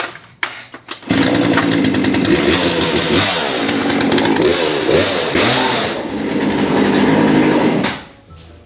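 A chainsaw running and revving, its pitch rising and falling. It starts about a second in and cuts off near the end.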